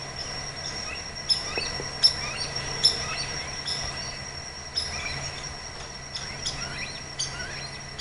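Tropical forest birds chirping and calling in many short, sharp notes, over a steady high-pitched drone of crickets or other insects.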